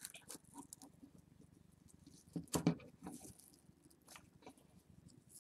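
Dry pine needles and twine rustling and crackling as hands pull the twine tight and knot it around the bundle, with scattered faint ticks and a louder crackle about two and a half seconds in.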